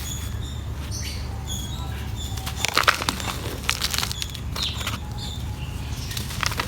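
Dry mud crumbling and being crushed, giving crisp crackling crunches. The crunches are loudest in a cluster about three seconds in, with more around four seconds and again near the end.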